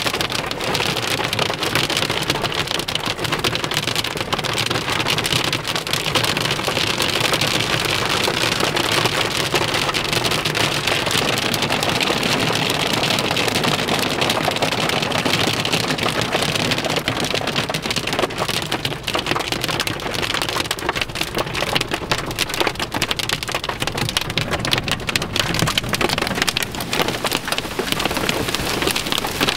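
Hail and heavy rain pelting a vehicle's roof and windshield, heard from inside: a dense, unbroken patter of countless small hits.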